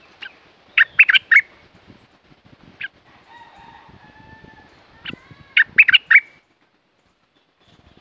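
Stripe-throated bulbul singing: two loud bursts of four or five quick notes, about a second in and again about six seconds in, with softer whistles between them.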